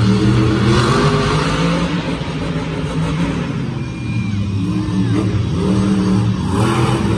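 Monster truck engine revving hard, its pitch rising and falling repeatedly as the throttle is worked.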